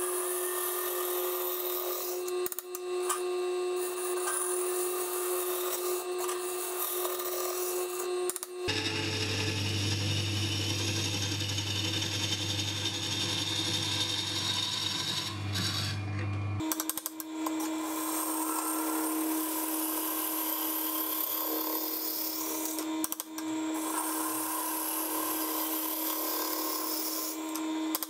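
Wood lathe running with a steady motor hum while a hollowing hook tool cuts into the end grain inside a spinning wood blank, a continuous scraping cutting noise. The sound changes abruptly about nine and seventeen seconds in, the motor tone giving way to a lower hum and then returning slightly lower in pitch.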